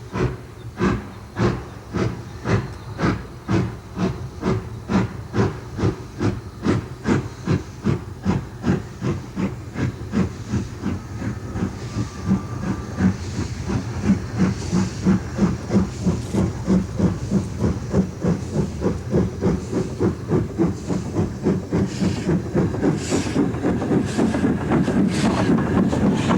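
LNER class K1 2-6-0 steam locomotive working hard, its two-cylinder exhaust beats quickening from about one and a half to three or four a second as it gathers speed. It grows louder toward the end.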